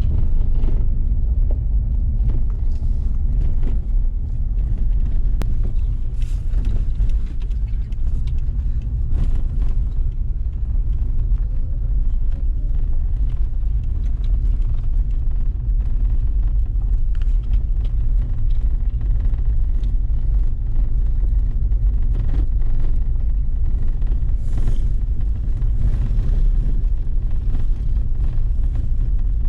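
Steady low rumble throughout, with faint brief higher hissy flickers now and then.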